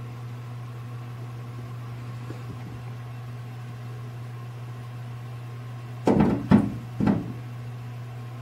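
Canada goose beyond a glass door making three loud, short sounds in quick succession about six seconds in, over a steady low hum.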